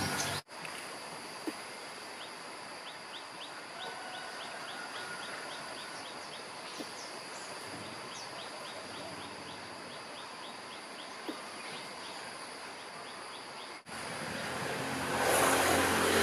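White tree squirrel calling for a mate: a long series of short, sharp calls, about three a second, over a steady high insect-like drone. Near the end a louder low hum and noise comes in.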